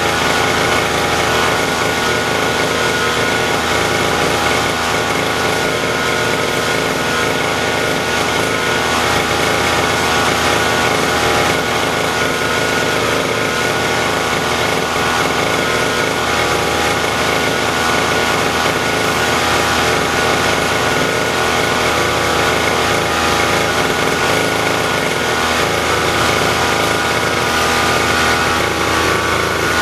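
Small lawn-mower petrol engine running steadily at a constant high speed, its pitch and loudness holding even throughout.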